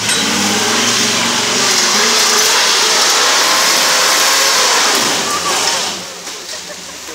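Off-road Jeep's engine revving hard at high rpm under full throttle as it climbs a steep dirt hill. The engine note drops away about six seconds in.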